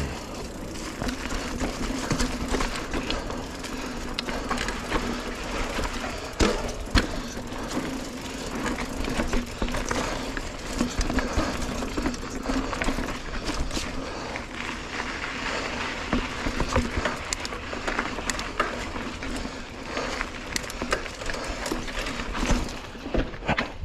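Mountain bike riding over a rooty dirt singletrack: a steady rush of tyre and wind noise with frequent knocks and rattles as the bike hits roots.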